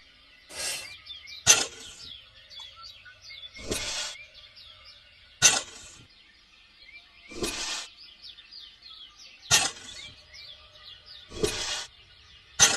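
Birds chirping steadily, with a repeating pair of sounds about every four seconds: a short hiss or scrape lasting about half a second, then a sharp knock, the loudest thing heard.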